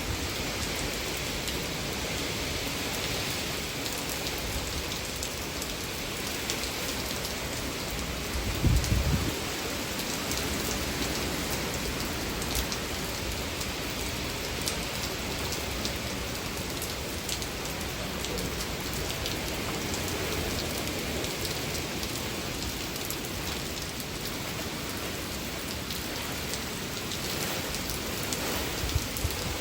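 Steady hurricane rain falling, with a constant hiss and fine patter of drops. About nine seconds in there is a brief low rumble.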